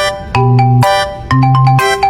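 Background music: a bright, bell-like melody over a bass line that hits about once a second.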